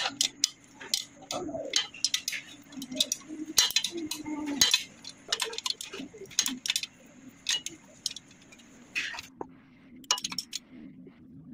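Steel ring spanner turning a nut on a wall bolt, giving irregular sharp metallic clinks and clicks as it is worked and repositioned on the nut. The clicks thin out near the end.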